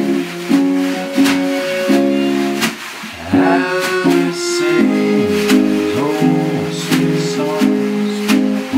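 Acoustic archtop guitar strummed in a steady rhythm with a Hohner accordion holding sustained chords: a slow old-time song played in a small room.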